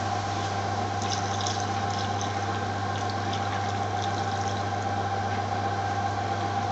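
Steady low kitchen hum and hiss as a large pot of chopped onions, vegetables, oil and water heats on the burner, with a few faint light crackles from the pot about a second in.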